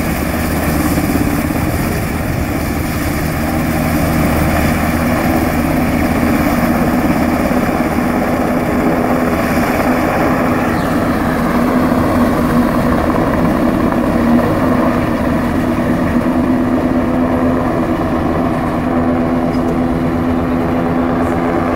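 US Coast Guard Jayhawk rescue helicopter flying away: steady rotor and turbine noise, with its higher whine fading from about halfway through as it draws off.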